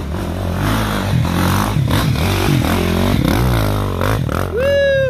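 Dirt bike engine revving up and down in short bursts at low speed, with clattering and scraping as the bike pushes through brush and branches. Near the end the revs rise and hold at a higher pitch.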